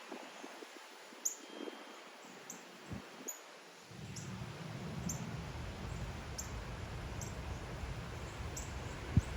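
Wind buffeting the microphone, setting in about four seconds in as a low rumble. A short, high chirp repeats a little more than once a second throughout, and one loud thump comes near the end.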